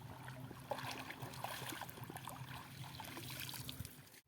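Shallow wetland water splashing and sloshing in many small irregular bursts as men wade and grope through it by hand for fish, with a faint low hum beneath; it cuts off suddenly near the end.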